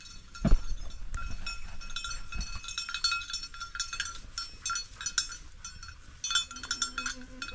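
Bell on a hunting dog ringing in irregular jangles as the dog moves about, with one dull thump about half a second in.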